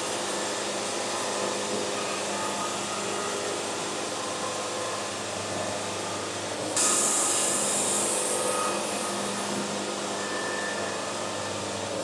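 A power woodworking machine running steadily with a hum. About seven seconds in it gets louder, with a sharper hiss added.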